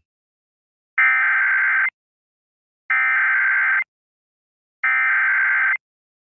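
Emergency Alert System SAME header: three identical bursts of digital data tones, each just under a second long with about a second of silence between them. It is the encoded start of a civil emergency message.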